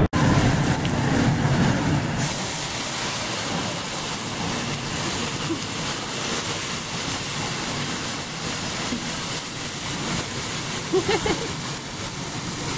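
Steady hissing sizzle from food burning on a hot teppanyaki griddle, with flames rising off it.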